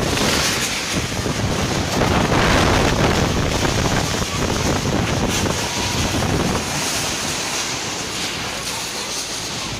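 Storm wind from a whirlwind blowing hard and buffeting the microphone, loudest a couple of seconds in and easing slightly toward the end.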